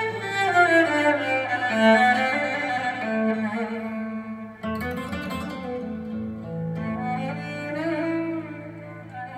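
A flamenco recording played through Bongo floor-standing speakers with SABA Green Cone full-range drivers, driven by a 300B tube amplifier: a string-instrument melody with falling runs of notes, and a fresh chord about four and a half seconds in.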